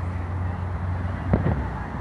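Two dull booms of distant aerial firework shells bursting, close together just past the middle, over a steady low rumble of street traffic.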